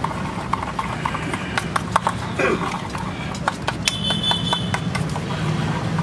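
A spoon clinking irregularly against a small steel bowl as eggs are beaten, over a steady low hum.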